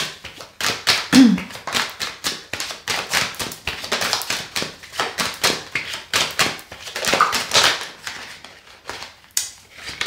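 A deck of divination cards being shuffled by hand: a quick, dense run of card-on-card clicks and slaps that eases off near the end.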